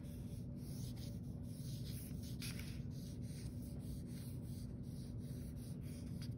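Drawing on paper: a dark drawing stick scratching across the sheet in repeated short strokes, with a faint low steady hum underneath.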